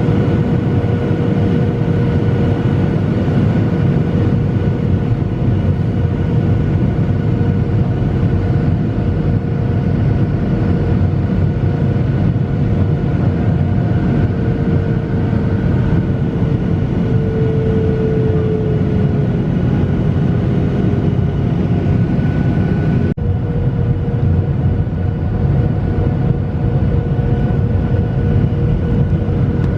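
Steady roar of a Boeing 737's jet engines and airflow inside the passenger cabin in flight, with a faint steady whine over the low rumble.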